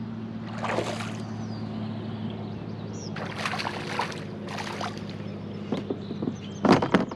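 Hooked largemouth bass thrashing and splashing at the water's surface in several short bursts as it is played toward an aluminium bass boat, with the loudest burst near the end. A steady low hum runs underneath.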